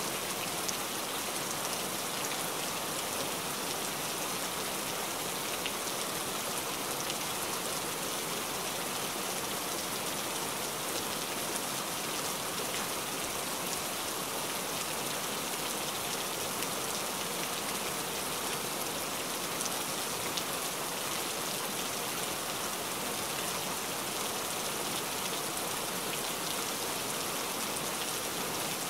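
Rain falling steadily: an even hiss of many drops splashing, holding the same strength throughout.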